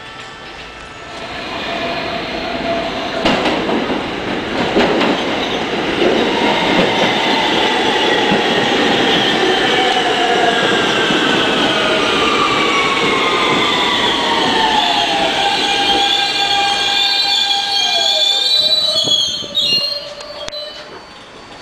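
New York City subway train pulling in alongside the platform: the rumble of wheels on rails builds up, with several whining tones sliding steadily down in pitch as the train slows. High wavering squeals come near the end, and the noise drops away a couple of seconds before the end.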